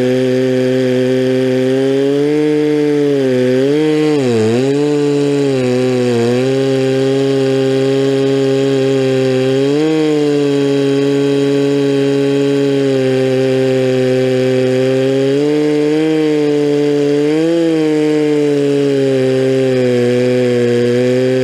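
Stihl 046 two-stroke chainsaw running at high revs under load, ripping a log lengthwise into a slab with milling chain on a 24-inch bar. The engine pitch sags and recovers around four to six seconds in, with smaller rises and falls later as the load changes.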